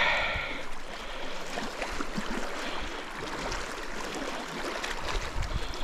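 Steady rush of flowing water, with faint scattered ticks over it.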